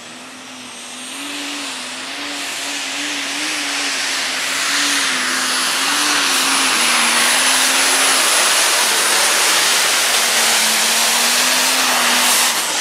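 Multi-turbocharged 540-cubic-inch diesel pulling tractor running flat out under load on a pull, with a high steady turbo whistle above the dense engine noise. It grows louder over the first several seconds and cuts off near the end.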